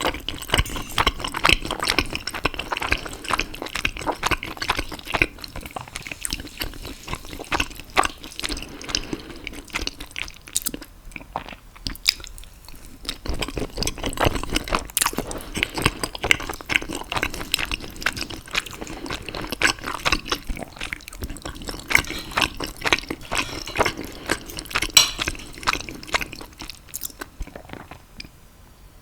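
Close-up chewing and mouth sounds of someone eating: irregular soft smacks and squishing clicks, with a couple of short pauses about a third of the way in and a lull near the end.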